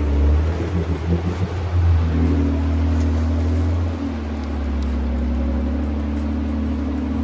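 An 80-series Toyota Land Cruiser's straight-six engine running steadily as the truck fords a river, over the constant rush of the water around it.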